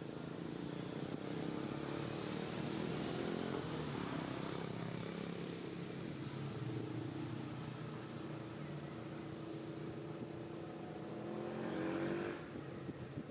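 An engine running, its pitch drifting up and down; near the end it rises and grows louder, then drops off suddenly.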